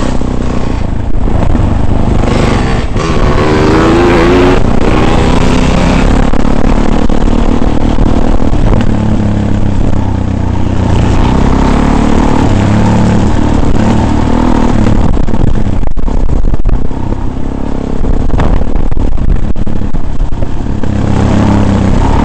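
Off-road vehicle engine running under load, its pitch rising as it speeds up a few seconds in, with clattering and rumble from the vehicle over rough ground.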